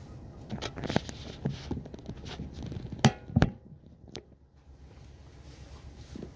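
Inside a moving passenger train carriage: irregular clicks and knocks from the wheels crossing rail joints and points over a low rumble, with two loud knocks close together about three seconds in.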